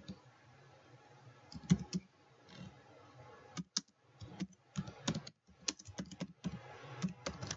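Typing on a computer keyboard: irregular keystrokes, a few at first, then coming quickly from about three and a half seconds in.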